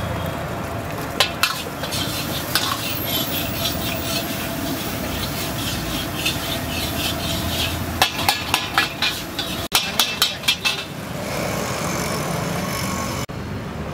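Egg podimas sizzling in a large wok while a long metal ladle stirs, scrapes and clanks against the pan. Rapid runs of clanks come about eight seconds in and again just after ten seconds.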